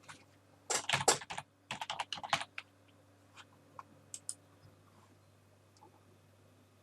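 Typing on a computer keyboard: a quick run of keystrokes, then a few scattered single key clicks.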